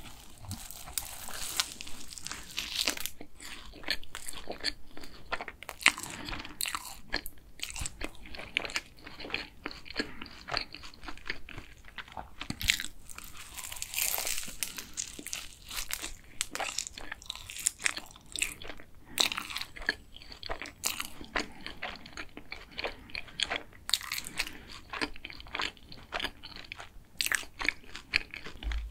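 Close-miked biting and chewing of a glazed cronut, its flaky laminated pastry and sugar glaze crackling in many quick, irregular crunches.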